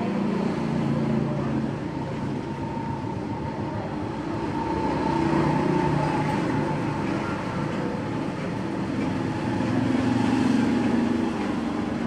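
Steady low rumbling background noise that swells about halfway through and again near the end.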